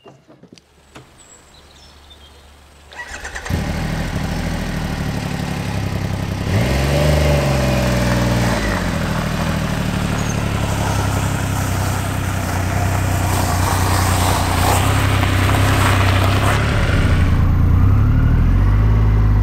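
Triumph Rocket 3 R's 2.5-litre three-cylinder engine starting about three seconds in, revving up and back down once, then running steadily as the bike pulls away and rides on.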